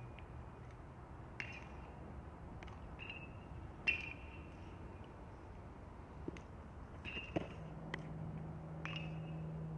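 Sharp cracks of baseballs being hit, each with a short metallic ring like a metal bat, about every two to three seconds over open-field background noise. A steady low hum comes in near the end.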